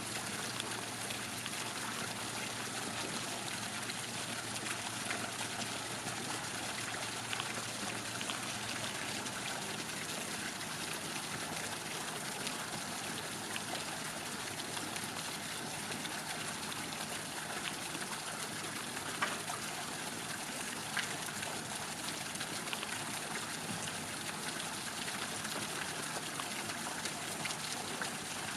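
Steady rush of running water with no break, with a couple of faint ticks near the middle.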